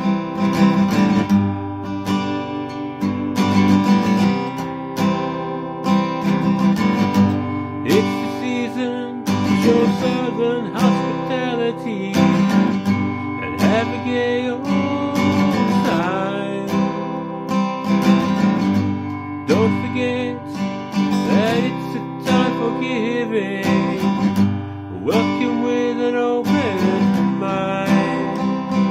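Acoustic guitar strummed in a steady rhythm, with a man singing along from about ten seconds in.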